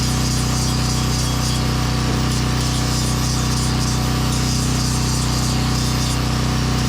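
Portable generator running at a steady, unchanging pitch, with a power tool working wood over it.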